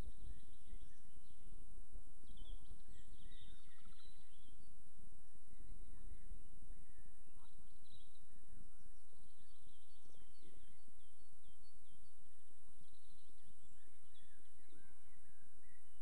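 Small birds chirping and singing on and off over a steady low rumble and a high, even hiss.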